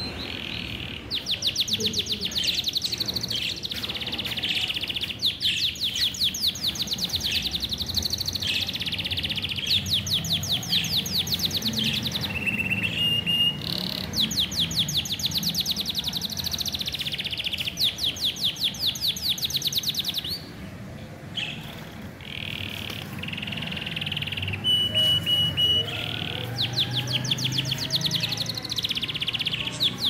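Budgerigars chirping in rapid trills that come in repeated bursts of about two seconds, with a couple of short steady whistles.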